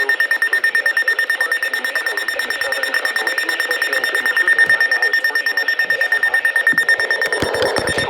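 Emergency alert receiver's alarm sounding a single high, steady-pitched tone in rapid, even pulses, signalling an incoming National Weather Service winter storm warning.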